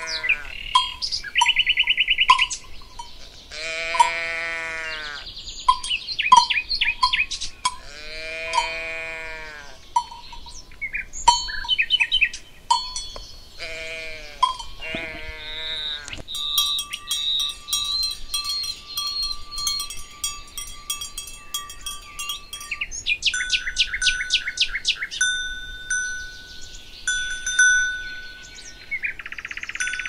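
Livestock bleating in four wavering calls about four seconds apart, over clanking bells and chirping birds. In the second half the calls stop and layered bell tones ring with rapid strokes, mixed with birdsong.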